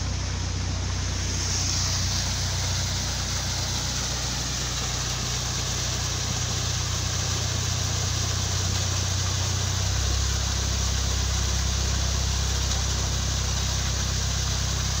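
Narrowboat's diesel engine idling steadily, its low note shifting about ten seconds in, under a steady rush of water pouring through and over the leaking upper lock gates.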